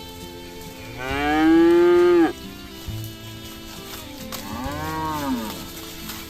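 Cow mooing twice: a loud call that rises and falls and cuts off sharply, then a second, softer moo a couple of seconds later, over background music.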